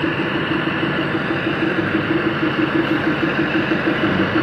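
Standing MEMU train's power car running steadily at rest, a constant machine hum with a rapid, even pulse.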